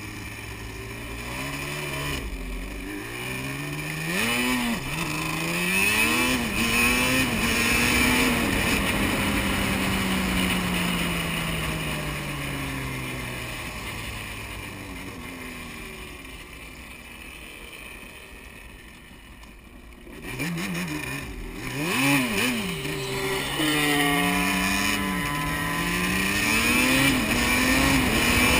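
Yamaha Banshee's two-stroke twin engine accelerating hard through the gears, its pitch climbing and dropping at each shift, with wind rushing past. Partway through it eases off and fades, then revs up through the gears again near the end.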